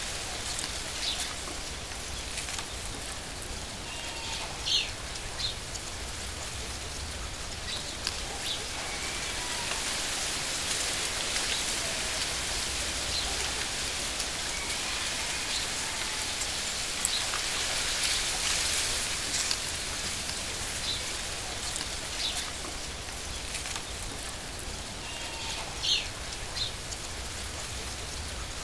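Steady rain-like hiss of a nature ambience, with short bird chirps here and there.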